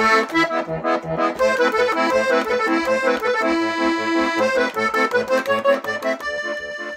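Accordion music, a lively traditional-style tune over a steady, regular bass beat, growing quieter near the end.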